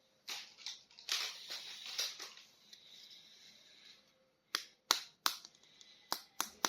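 Plastic toy packaging being handled: crinkling and rustling for the first few seconds, then a run of about six sharp clicks.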